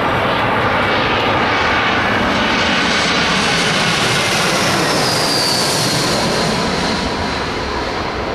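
Jet airliner's turbofan engines passing close by with loud, steady engine noise; a high whine slides down in pitch about five seconds in.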